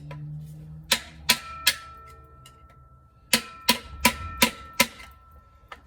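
Sharp metal-on-metal taps on a transmission being taken apart: three taps, a pause, five more about 0.4 s apart, then one more near the end, each leaving a short metallic ringing tone.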